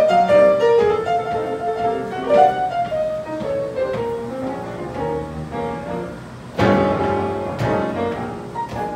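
Instrumental music: a sustained, gently bending melody line, with a louder chord striking in about two-thirds of the way through.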